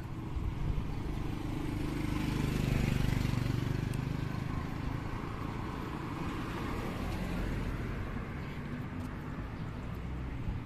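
Road vehicles passing close by: a motorcycle's engine swells as it rides past, loudest about three seconds in, followed by a car driving by, over steady street noise.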